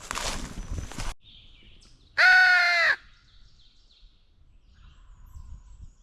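Footsteps in dry leaves stop about a second in; then a single loud, harsh crow caw lasting under a second, with faint bird chirps after it.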